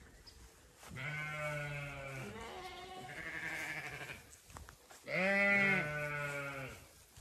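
Zwartbles sheep bleating: a long bleat of about three seconds starting about a second in, then a shorter, louder bleat about five seconds in.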